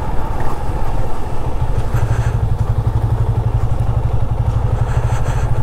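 Yamaha FZ25's single-cylinder engine running steadily at low speed, a loud, even low pulsing.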